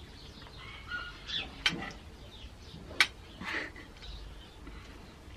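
A metal spoon clinking twice against an enamel plate, sharp and brief, with a few faint bird chirps.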